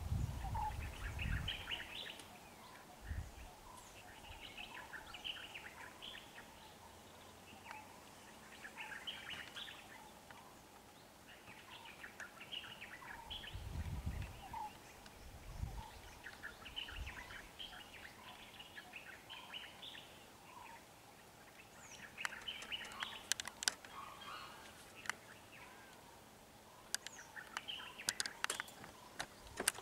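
Birds chirping in repeated short bursts of calls from the roadside bush. There are a few low thumps near the start and about halfway through, and sharp clicks near the end.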